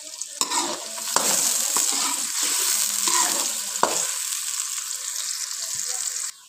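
Chopped onions sizzling in hot oil in a metal pan while being fried to golden brown. A spatula scrapes and stirs them through the first four seconds, then the sizzle runs on steadily and cuts off suddenly near the end.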